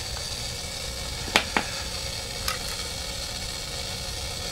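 Light metal clicks as the steel treadle and enclosure of a wah pedal are handled: two sharp clicks close together about a second and a half in, then a fainter one about a second later, over a steady background hiss.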